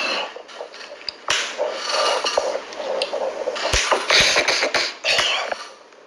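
Rustling and rubbing handling noise on a phone's microphone as the phone is moved, in two long stretches with a few sharp knocks and clicks.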